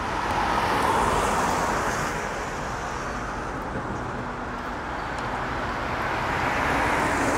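Live audience applauding, a dense, steady clatter of clapping that swells about a second in, eases off, then builds again near the end.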